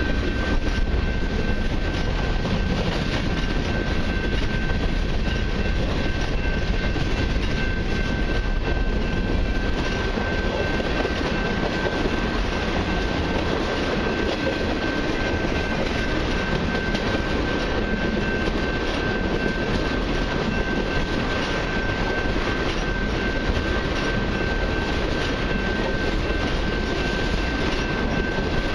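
Freight cars of a long mixed freight train rolling past close by, steel wheels clacking over the rail joints in a steady rumble. A thin, steady high-pitched tone rides over it.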